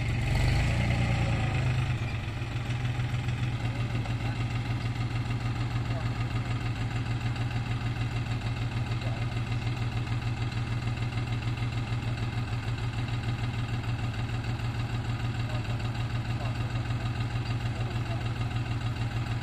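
Vehicle engine idling steadily with an even low pulse, a little louder for about the first two seconds.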